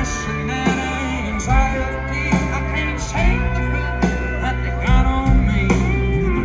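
Live band playing on stage, with electric guitar, a steady drum beat and a lead singer, heard from among the audience.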